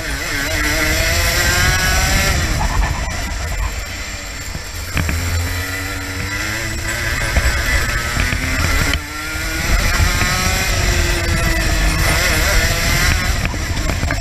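Racing kart engine at full race pace, its pitch climbing over a few seconds along each straight and falling away as it slows for corners, about three times.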